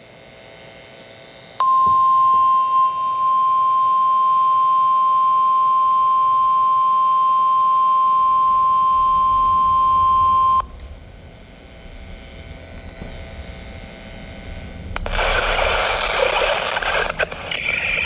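NOAA Weather Radio's 1050 Hz warning alarm tone: a single steady beep that starts about a second and a half in, holds for about nine seconds and cuts off sharply. Radio hiss follows it. Near the end a voice begins the test message.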